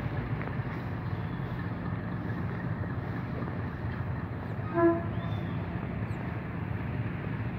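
A diesel test train runs with a steady low rumble, and its horn gives one short toot about five seconds in.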